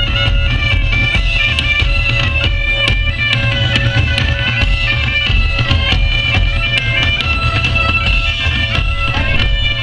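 Live Celtic band music: bagpipes playing a stepping melody over their steady drone, backed by drums and a heavy low boom.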